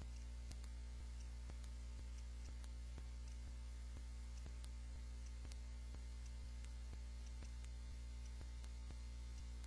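Steady low electrical hum from the recording chain, with faint regular clicks running through it; no speech or other sound.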